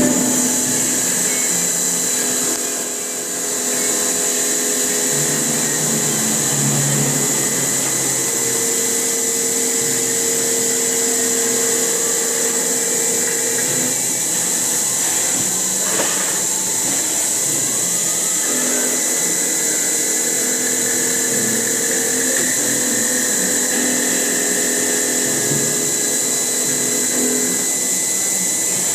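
CNC milling machine running its finishing pass on a metal profile: a steady high spindle whine throughout, with a lower hum that comes and goes every several seconds as the machine moves.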